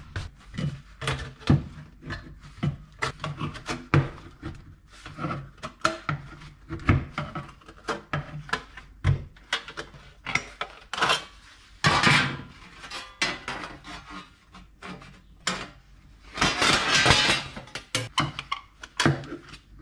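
Hand snips cutting thin aluminium sheet: a run of irregular sharp snips and clicks, with the sheet rattling and scraping against the workbench. A couple of longer, louder rasping stretches come about two thirds and five sixths of the way through.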